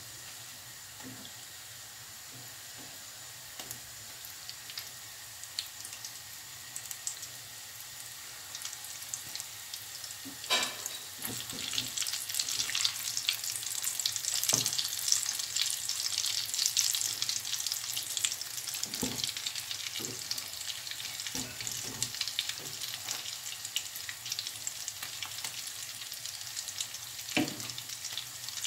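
Breaded stuffed potato balls deep-frying in hot oil: a steady crackling sizzle that grows louder after about ten seconds, with a few knocks as a slotted spatula turns the balls in the pot.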